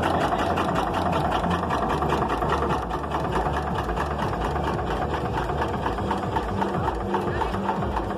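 1935 Svoboda Diesel Kar 10 tractor's diesel engine idling with a steady, rapid, regular beat.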